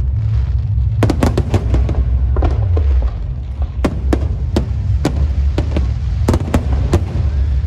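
Fireworks and firecrackers going off: many sharp cracks and bangs at an irregular pace, some in quick clusters, over a steady low rumble.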